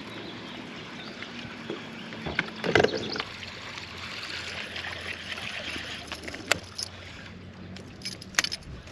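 Steady water and wind noise around a fishing boat, with a few sharp knocks and clicks; the loudest comes about three seconds in.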